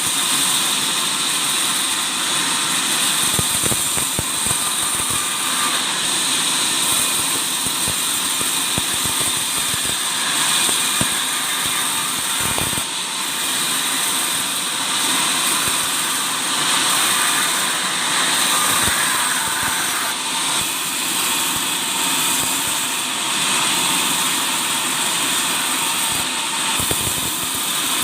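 A woodworking power machine running steadily on wood, a continuous high-pitched hiss and whine, with a few brief knocks along the way.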